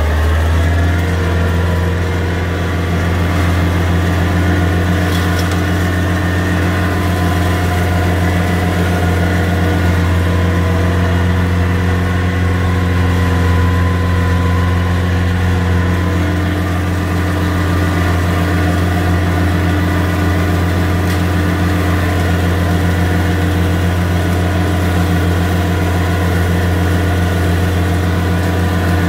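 Antonio Carraro TC5800F tractor engine running steadily at working speed, driving an offset flail mower through grass, heard from inside the cab. The engine note rises to speed in the first second, then holds steady.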